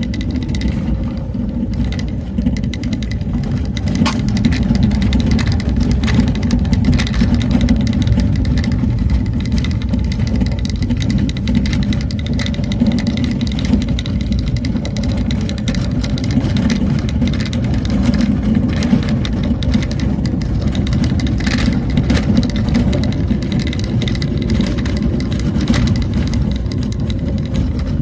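A vehicle travelling along a road: steady low engine and road rumble, with a few brief knocks or rattles.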